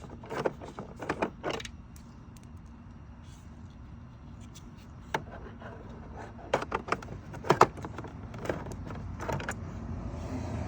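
Scattered clicks and knocks of tools, screws and the dispenser's plastic trim being handled during disassembly, in short clusters over a low steady hum.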